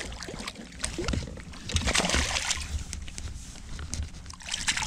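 Water sloshing and splashing against a small fishing boat, with scattered knocks of handling. A louder splash comes about two seconds in.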